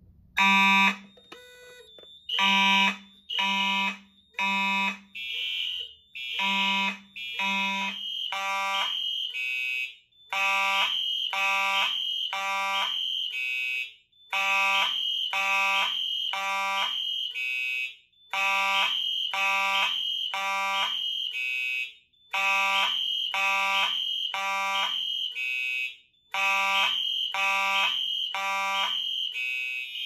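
Simplex and Wheelock fire alarm horn strobes on three linked panels sounding in the temporal-three evacuation pattern: three blasts, then a pause, repeating about every four seconds. A first horn blasts about half a second in, and the other horns join within a few seconds, slightly out of step with one another.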